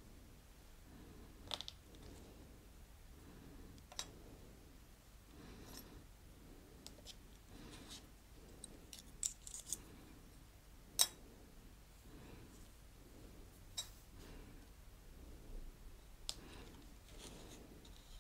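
Faint, scattered clicks and taps of a plastic ball tool against a metal fern cutter as cut flower-paste fronds are pushed out of it; the sharpest click comes about eleven seconds in.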